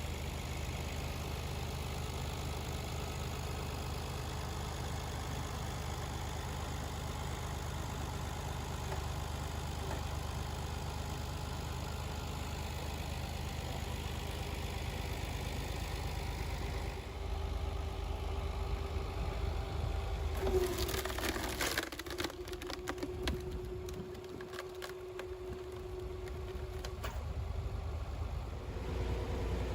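Homemade engine-driven log splitter running steadily. About two-thirds of the way through, wood cracks and splinters sharply as a log is forced apart, and a steady whine from the machine follows.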